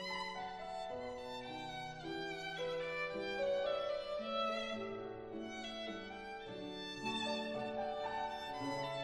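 Solo violin playing the melody over sustained accompanying chords from other instruments, the notes held and changing every second or so.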